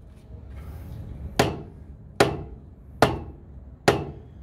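Rubber mallet striking the end of a black ABS sewer pipe four times, a sharp blow a little under a second apart. Each blow drives the pipe a little further inside an old, collapsing Orangeburg sewer line.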